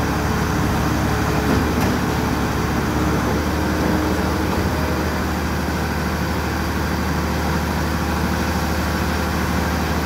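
Diesel engines of a self-loading concrete mixer truck and a trailer concrete pump running steadily as wet concrete is discharged from the drum into the pump hopper.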